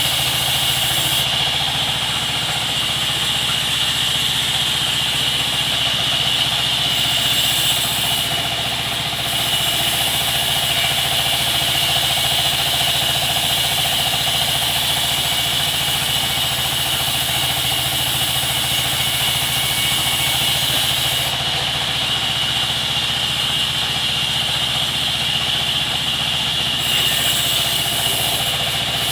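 Sawmill machinery running steadily: a constant low engine-like hum with a steady high whine above it.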